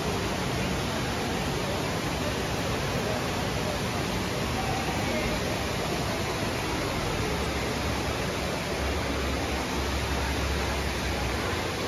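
Water pouring steadily down a large indoor artificial rock waterfall, an even, unbroken rushing.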